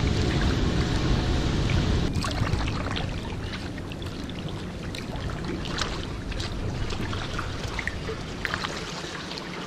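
Kayak paddling: water dripping and lightly splashing off the paddle blades in many small, quick drips. For about the first two seconds a low wind rumble on the microphone lies under them.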